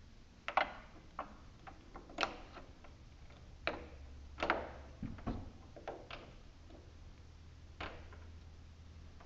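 Irregular clicks and light knocks of hand tools on the mower engine while working at a spark plug.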